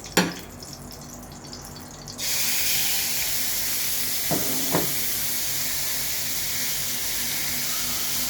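Chicken pieces going into hot oil in a pan: a knock just after the start, then about two seconds in a sudden, steady sizzle that keeps going, with two short sounds around the middle.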